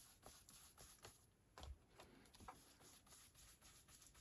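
Faint, soft scratchy swishes of a blending brush working ink onto cardstock, a few strokes a second.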